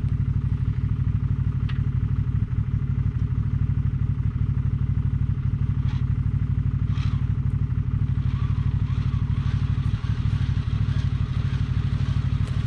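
Can-Am Maverick Sport XRC's Rotax V-twin engine idling steadily, with a few faint clinks partway through.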